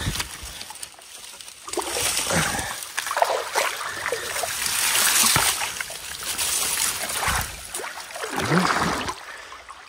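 River water splashing and sloshing in uneven spells, from someone working in the water by hand.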